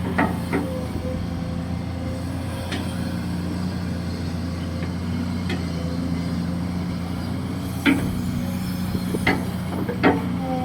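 Kobelco SK200-6 Super hydraulic excavator running steadily while digging, with several sharp metallic knocks from the machine at irregular intervals, the loudest near the end.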